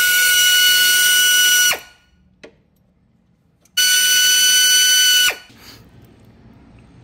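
Power tool run twice in bursts of about two seconds each, a steady whine over a hiss, each ending with a short wind-down.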